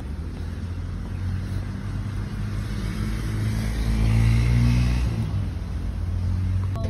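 A motor vehicle engine running close by with a low rumble, growing louder to a peak about four seconds in and then easing off as it passes.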